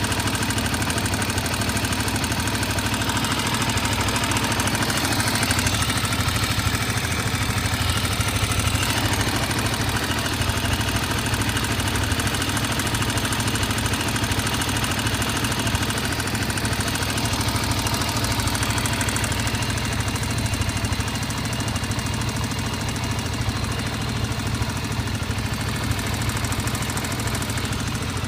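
Honda XR250's single-cylinder four-stroke engine idling with a knock from the cylinder head that comes and goes. The owner gives unadjusted valve clearances as one possible cause.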